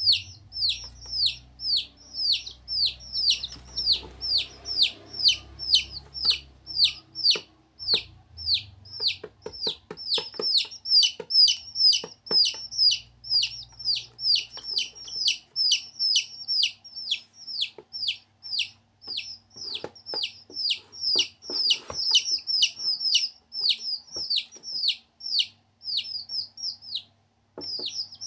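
Baby chicks peeping without pause: short, high calls, each falling in pitch, about three a second, from more than one chick.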